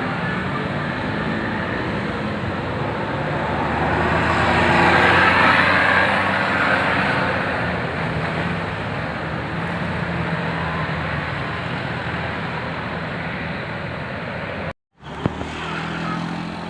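Road traffic: a passing vehicle's engine and tyre noise swells to a peak about five seconds in, then eases back to a steady traffic rumble. The sound cuts out for a split second near the end, followed by a couple of clicks.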